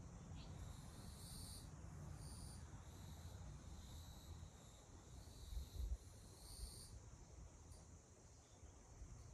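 Faint outdoor ambience: a steady high insect drone with repeated short, higher calls over it, above a low rumble, and one dull thump about six seconds in.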